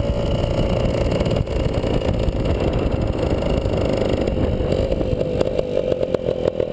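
1952 Hoffmann MR175's 175cc two-stroke engine running as the motorcycle rides along, its note sagging slightly. From about five seconds in the note drops further and the separate exhaust beats stand out as the engine slows.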